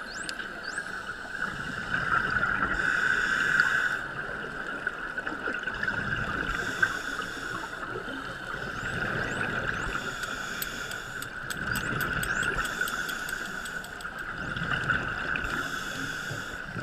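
Underwater sound from a camera housing on a dive: scuba divers' regulator exhaust bubbles gurgling out in bursts of about a second every few seconds, over a steady hum. A few faint, short high chirps come through now and then.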